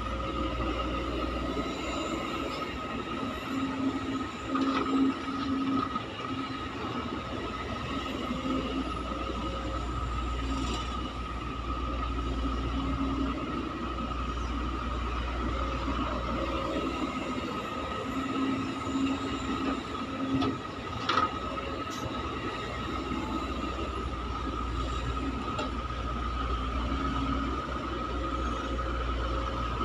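CASE excavator's diesel engine and hydraulics working, a low rumble that swells and eases with a steady high whine over it. Louder clattering comes around five seconds in and again near twenty seconds, with one sharp knock.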